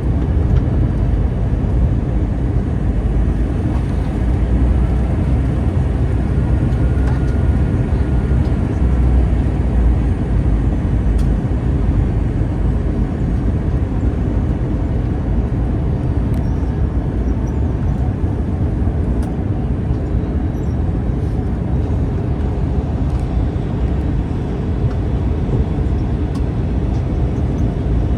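Airbus A321 jet engines, a steady low rumble with no clear rise or fall.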